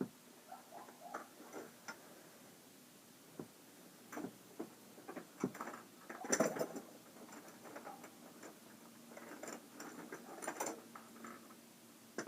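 Scattered light clicks, taps and rustles of small objects being handled, with a louder cluster of knocks about six seconds in and another near ten seconds.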